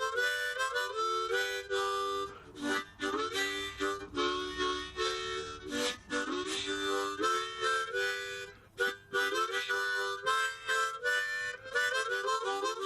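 Background music: a harmonica playing a quick melody, note after note.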